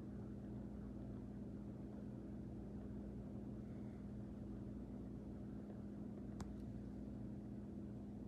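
A steady low hum over faint background noise, with one faint click about six seconds in.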